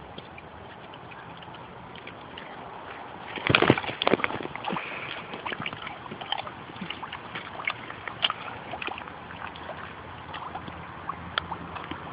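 Water splashing and sloshing in a shallow plastic kiddie pool as a potbellied mini pig moves through it, with a burst of louder splashes about three and a half seconds in, then scattered small splashes.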